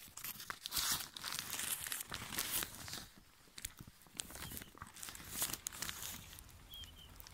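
Tent fabric flapping and crinkling as gusty desert wind tugs and shakes the tent, in irregular bursts.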